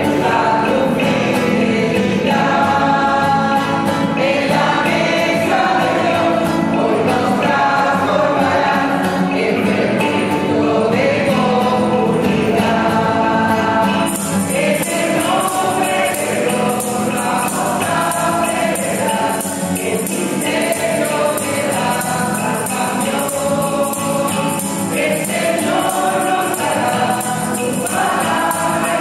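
A group of voices singing a church hymn together: the entrance hymn at the opening of Mass.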